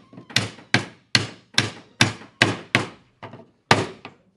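Steady hammer blows on wood, about ten sharp knocks at roughly two and a half a second, driving a through-batten into its groove across a wooden panel.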